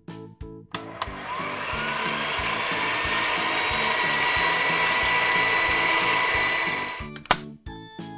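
A whirring, blender-like machine sound effect for an animated ball-popper toy, playing over background music and rising briefly as it starts. It fades out near the end, followed by two sharp pops as balls begin to shoot out of the toy.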